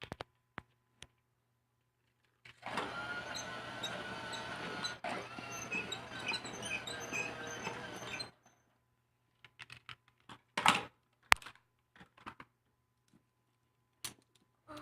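Small electric motor of a battery-powered remote-control toy train whirring steadily for about six seconds, starting and stopping abruptly. A few light plastic clicks and knocks follow.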